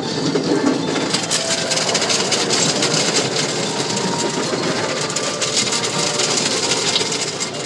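Automatic car wash brushes and water spray scrubbing over the car, heard from inside the cabin: a steady rush of water with rapid slapping against the glass and body.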